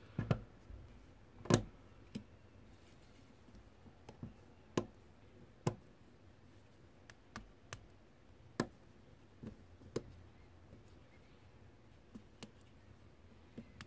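Plastic LEGO Technic pins snapping into black liftarm beams, with parts tapping against the tabletop: a dozen or so scattered, sharp clicks and taps at irregular intervals, the loudest about one and a half seconds in.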